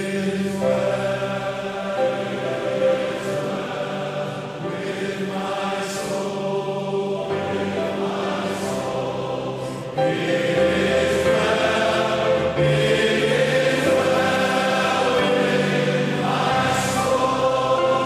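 Church choir and congregation singing a hymn, with long held notes; the singing grows louder about ten seconds in.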